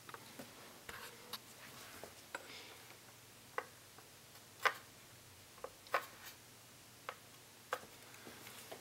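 Faint, irregular small clicks and taps of a soldering iron tip working over the solder pads of a surface-mount IC on a circuit board, about a dozen in all, the loudest near the middle.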